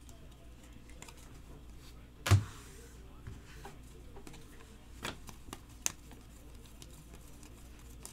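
Trading cards being handled: soft clicks and rustles of cards and plastic sleeves, with one louder thump about two seconds in, over a low steady hum.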